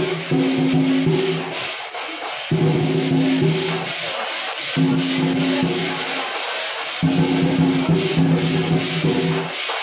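Chinese lion dance percussion: a fast, loud beat with rapid cymbal clashes. Low held tones drop out and come back every second or two.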